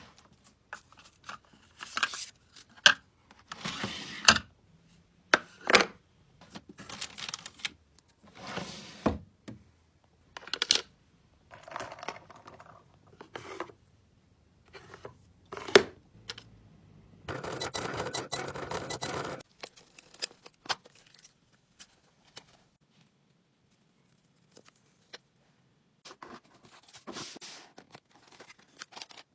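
Hands packing an order: small plastic crates, drawers and packing items being handled, making scattered clicks, knocks and rustles, with a longer rustle of about two seconds a little past the middle.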